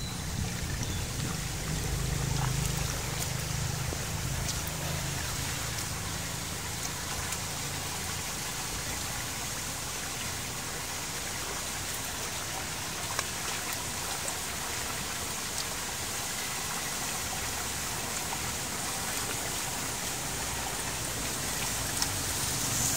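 Rainwater running into a curbside storm-drain grate as a leaf clog is cleared: a steady rushing trickle, with a few splashes from a hand working at the grate in the water.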